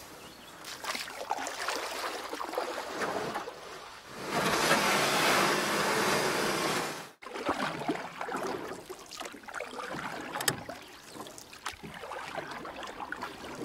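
Creek water running and trickling over rocks, with small splashes and knocks. About four seconds in, a loud, even rush of noise comes up for about three seconds and cuts off suddenly.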